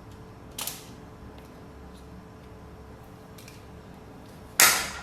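Kitchen handling noises: a light knock about half a second in, then a much louder, sharp clatter near the end, over a quiet room hum.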